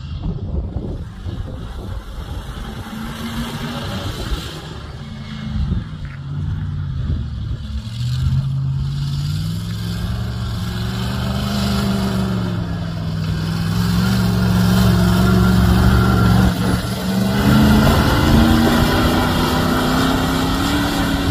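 Comp safari off-road racing vehicle's engine driving hard through sand. The engine note climbs and rises in pitch, holds high, dips briefly about three-quarters of the way through, then climbs again as the vehicle passes close.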